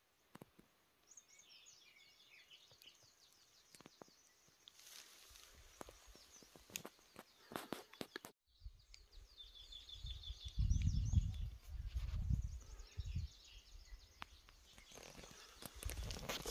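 Small birds twittering in rapid series of high chirps, with crunching footsteps on dry leaf litter. About ten seconds in, a low rumble of wind on the microphone is the loudest sound.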